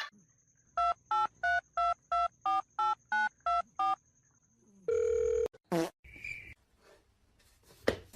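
Phone keypad dialing tones: about ten quick two-tone beeps in an even run, like a number being dialed, then a longer single beep about five seconds in.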